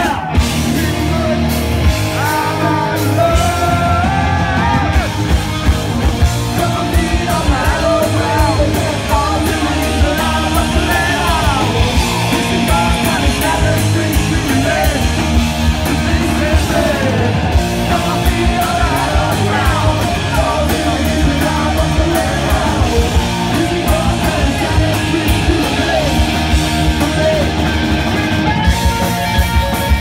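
Live rock band playing loud: a singer yelling and singing into a microphone over electric guitar, bass guitar and a steady drum beat.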